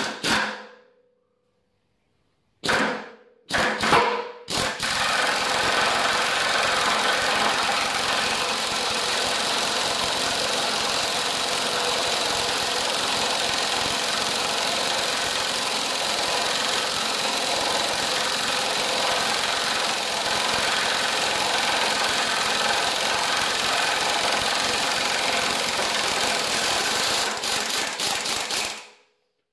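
Pneumatic impact wrench hammering on the forcing screw of a two-jaw bearing puller, drawing a long-seated, corroded bearing off a fan shaft. It gives a few short blips, then runs without a break for over twenty seconds, stuttering briefly just before it stops near the end.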